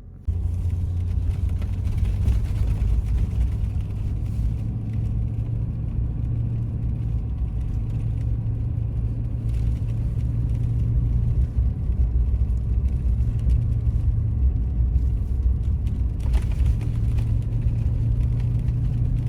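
Car driving on a road: a steady low rumble of engine and road noise, heard from inside the vehicle, which starts abruptly right at the beginning.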